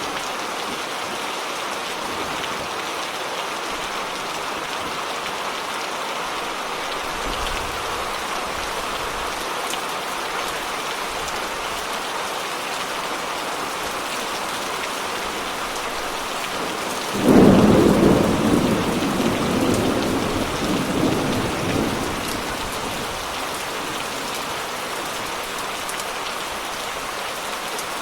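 Steady rain falling, with one clap of thunder about two-thirds of the way through that rumbles on for several seconds and fades.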